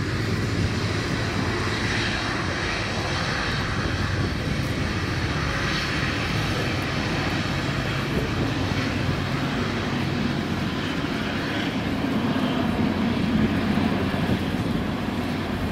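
Bombardier Dash 8 turboprop airliner on short final, its two turboprop engines and propellers droning steadily, a little louder near the end as it nears touchdown.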